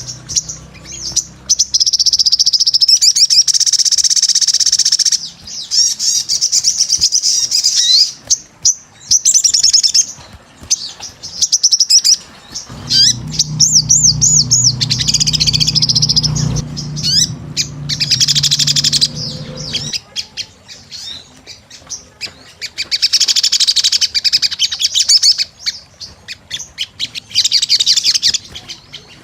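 Sogon sunbird singing energetically in repeated bouts of fast, high-pitched trills and warbling notes, each bout lasting a second or few with short pauses between. From about halfway in a low steady hum runs underneath for several seconds.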